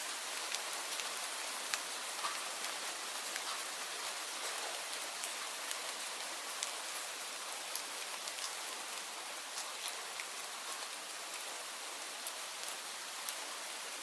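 Steady rain falling, an even hiss with individual drops ticking sharply on a surface every so often.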